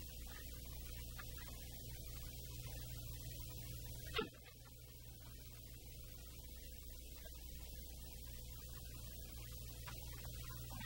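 A faint, low, steady drone with a thin steady tone above it, broken by one sharp click about four seconds in.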